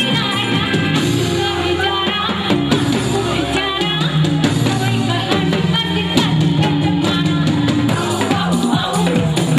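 A woman singing a song through a microphone and PA, accompanied by a live band with drums and keyboard.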